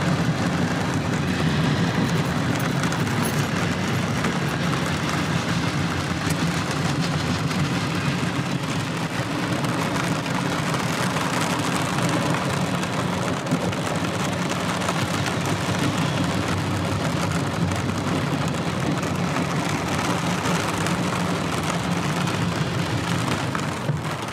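Long freight train rolling steadily past: a continuous low rumble and rush of wheels on rail as hopper, tank and box cars go by, with rain falling.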